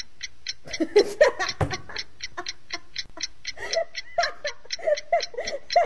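Countdown timer sound effect ticking like a clock, about four ticks a second, marking a timed quiz round. A woman laughs over the ticks, starting about a second in.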